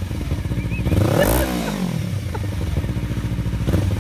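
Kawasaki Ninja 300 parallel-twin engine running through an Akrapovic slip-on exhaust with the baffle removed. It idles with a steady pulsing beat, is blipped once about a second in so the pitch rises sharply and falls back, then returns to idle.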